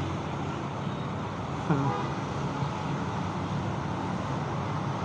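Steady road traffic noise, with a brief short pitched sound falling in pitch about two seconds in.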